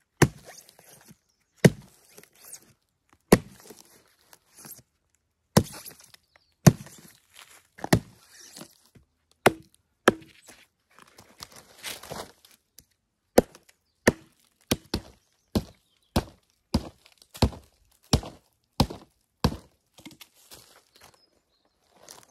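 Repeated sharp chopping knocks of a hand tool driven into thick cork bark on a dead cork oak branch to split it away, with light scraping and crunching between blows. The blows come a second or more apart at first, then quicken to about one and a half a second in the second half.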